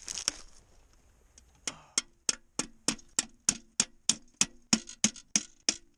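Spruce branches being cut back against the trunk with a hand tool: a run of about fourteen quick, even strokes, roughly three a second, starting a little under two seconds in.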